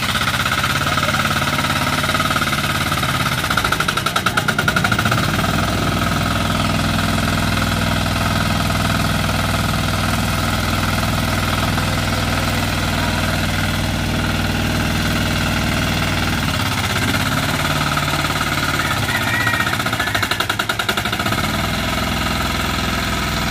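Small engine of a pagong (turtle-type) hand tractor running steadily while the tiller is pushed through deep, soft paddy mud. It chugs louder for a moment about four seconds in and again near the end.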